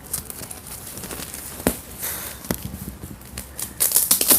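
Packaging rustling and clicking as a toy is handled and taken out, with a louder crinkly burst near the end.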